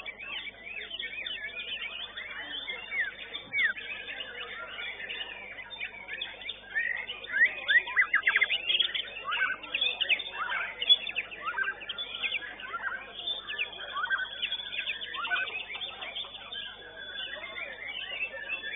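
White-rumped shama (murai batu) song: a fast, varied stream of chirps and sweeping whistles, busiest and loudest about seven to eleven seconds in.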